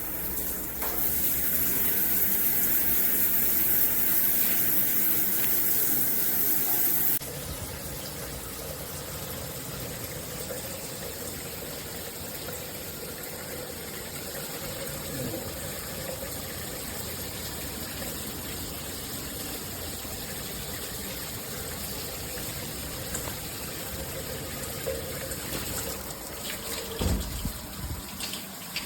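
Shower water spraying. A loud, hissy spray runs for about six seconds, then changes sharply to a softer, steady flow of running water. There is a thump near the end.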